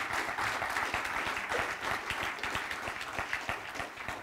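Audience applauding, a dense patter of many hands clapping that gradually dies away near the end.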